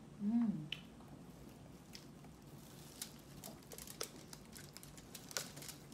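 Someone eating roast chicken: a short closed-mouth hum about half a second in, the loudest sound, then chewing and a scatter of crackly clicks and squishes as plastic-gloved hands pull apart a whole roast chicken.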